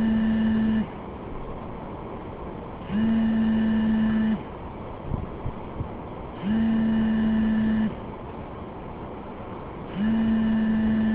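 A repeating electronic ringing tone: a steady low note with higher overtones, about one and a half seconds on and two seconds off, sounding four times over a steady background hiss.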